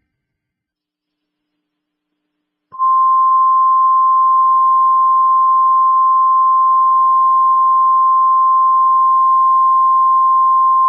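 NOAA Weather Radio 1050 Hz warning alarm tone: one steady, loud, unbroken beep that starts about three seconds in and holds, the signal that a warning message follows.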